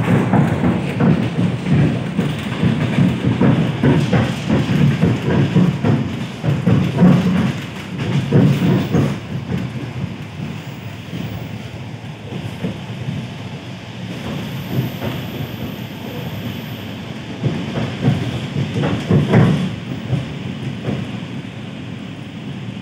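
ED4M electric train running between stations, heard from inside the passenger car: a steady low rumble with irregular clatter of wheels over the rail joints. It is heaviest in the first several seconds, eases off, then swells again briefly near the end.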